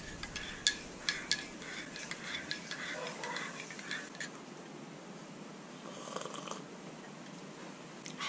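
Metal teaspoon clinking against the inside of a ceramic mug while stirring. There are many quick clinks through the first four seconds, then the stirring goes quiet.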